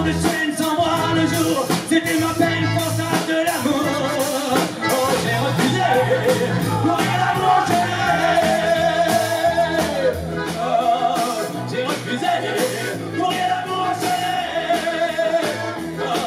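Live accordion, double bass and drum kit playing a lively musette dance tune with a steady beat.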